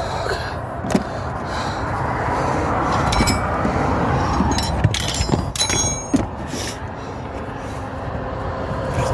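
Steady low vehicle rumble with scattered clicks and metallic clinks, a cluster of ringing clinks about five seconds in.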